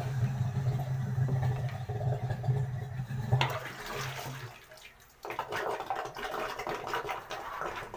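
Water sloshing and gurgling in a clogged ceramic toilet bowl while it is being cleared, over a steady low hum that stops about halfway through. After a short lull, water runs and drains noisily.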